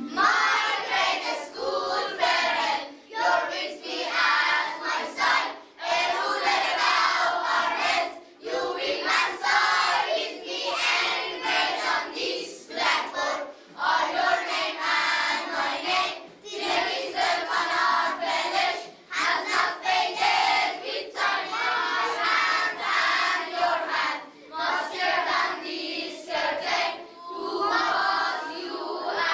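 A group of young boys singing together in unison without instruments, in short phrases with brief breaks between them.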